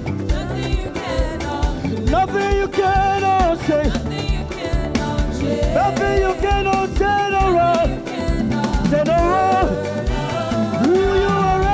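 Upbeat live gospel praise music: a band keeps a steady, danceable beat with drums and bass under long held melodic phrases that swell up three times.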